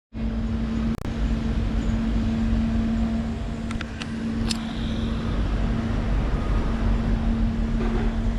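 Steady mechanical hum with a constant low tone over a low rumble, broken by a few short sharp clicks about a second in and around the middle.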